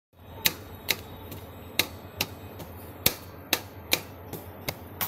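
Metal scraper chopping on the steel cold plate of a rolled ice cream maker: sharp, irregular clacks of metal on metal, about two a second, over a steady low hum.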